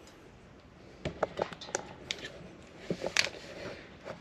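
Light clicks and taps of hand tools and metal parts being handled, a scattered string of them starting about a second in, with one louder click near the end.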